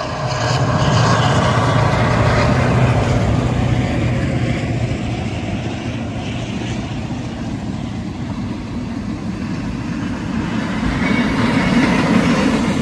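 A locomotive-hauled train passes close by, pulling unpowered electric multiple-unit cars. The locomotive's engine rumbles loudly for the first few seconds, then gives way to steady wheel and rail noise from the passing cars, which grows louder again near the end.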